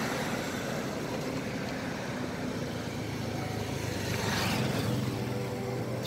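Steady background noise of a motor vehicle running, with a faint low hum, growing louder for a moment about four seconds in.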